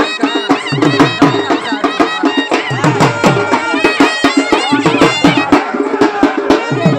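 Loud traditional folk music: fast drums beating sharply and steadily, under a wavering high melody line.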